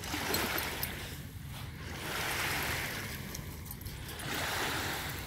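Small waves washing in on a shallow sandy shore, a steady wash that swells up twice.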